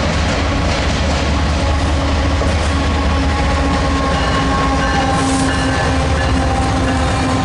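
Union Pacific diesel-electric locomotives leading an intermodal freight train, passing close by with a heavy engine rumble. A steady whine comes in about two seconds in.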